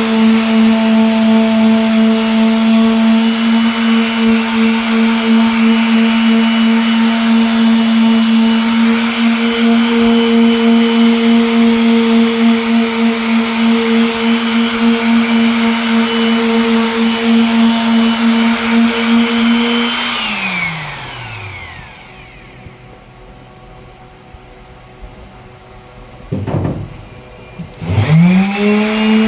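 Electric sander running steadily at full speed while sanding a headlight lens. About two-thirds of the way through it is switched off and winds down with a falling pitch. Near the end it is briefly blipped, then started again and spins back up to speed.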